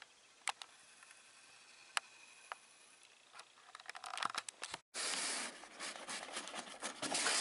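Faint night-time ambience broken by a few sharp clicks. After a sudden cut, loud rustling and scraping of a cardboard box, with many small knocks, as a metal light reflector is handled inside it.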